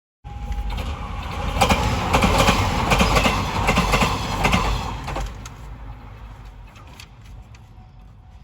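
A train passing close by at a level crossing, its wheels clacking over the rail joints. The sound is loudest from about one and a half to five seconds in, then fades as the train moves away.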